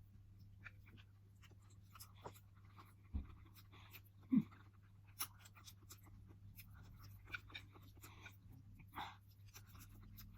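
Quiet eating sounds: soft chewing with scattered small clicks and a couple of brief knocks, over a low steady hum.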